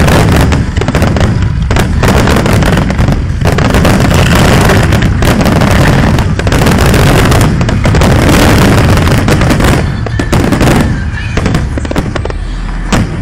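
Fireworks show: a dense, near-continuous barrage of aerial shell bursts and crackling, the closing finale, thinning out to a few last bangs near the end.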